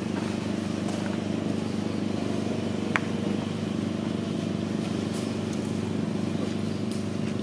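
A motor engine running steadily, a continuous low hum. A single sharp click sounds about three seconds in.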